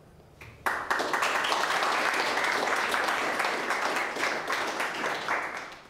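Audience applauding, many hands clapping at once; it starts suddenly under a second in, holds steady, and dies away near the end.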